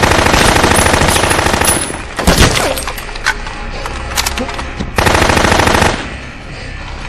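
Automatic rifle fire from an AK-style assault rifle: a long burst of rapid shots for about two seconds, a heavy thud soon after, then a second, shorter burst about five seconds in.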